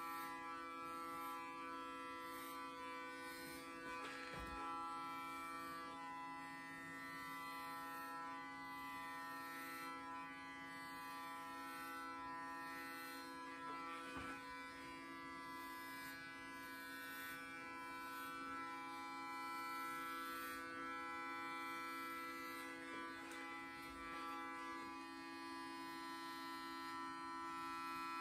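Electric hair clippers running with a steady buzzing hum as they shave a head close, with a soft knock now and then.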